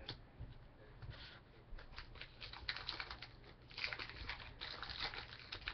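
Faint rustling and light clicks of trading cards and foil card-pack wrappers being handled, the rustles coming thicker from about halfway through.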